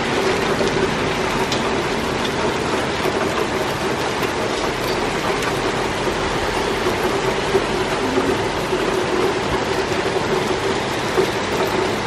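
Hail falling with rain: a steady, dense hiss of hailstones and raindrops striking surfaces, with scattered sharper ticks. A faint steady hum runs underneath.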